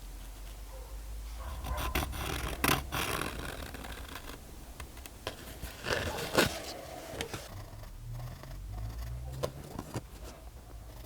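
Scraping and handling noises from small-part workshop handwork, with several sharp clicks; the loudest come about two and a half and six and a half seconds in.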